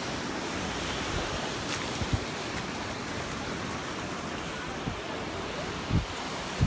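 Surf washing steadily onto a sandy beach, with a couple of brief low thumps about two and six seconds in.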